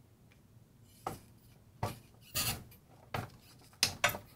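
Soldering iron and hand tools scraping and tapping on a radio's circuit board and metal chassis while a bent capacitor lead is desoldered: about seven short, irregular clicks and scrapes.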